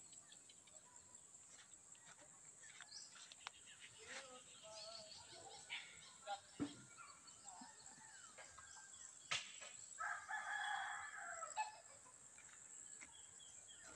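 A rooster crows once, about ten seconds in, lasting under two seconds and not loud. Around it are only faint scattered clicks and rustles, with a few brief bird chirps.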